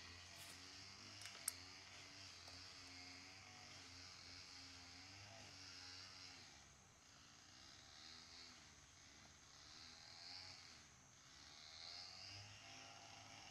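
Near silence: faint background hiss, with two light clicks in the first two seconds.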